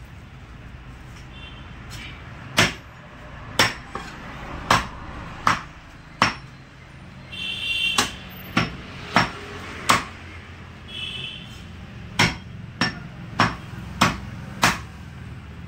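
Heavy butcher's cleaver chopping goat meat and rib bones on a wooden stump chopping block: about a dozen sharp chops in uneven runs, with short pauses between.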